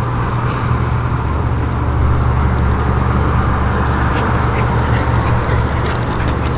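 A steady low mechanical hum, with a broad rushing noise over it that swells a little in the middle.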